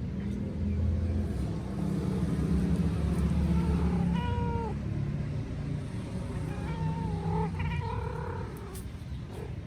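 Mother cat meowing to call her kitten: one short meow about four seconds in, then more drawn-out, wavering meows around seven to eight seconds in. A steady low rumble runs underneath.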